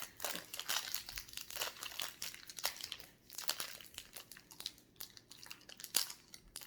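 Wrapper of a banana toffee crinkling in quick irregular bursts as it is handled and pulled at, the wrapper refusing to open.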